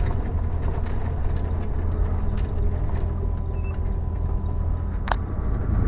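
Steady low drone of a moving lorry's engine and road noise, with a few faint ticks and one short rising squeak about five seconds in.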